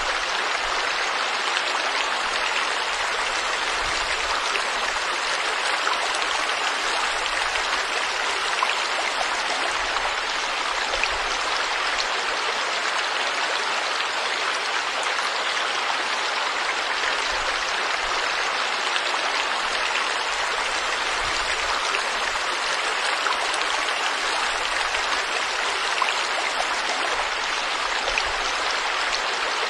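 Flowing stream in a forest: a steady, even rush of water with faint scattered splashes.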